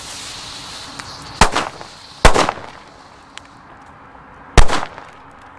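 Nico Super Böller 1 firecrackers exploding: three loud, sharp bangs spread over about three seconds, with a fourth right at the end.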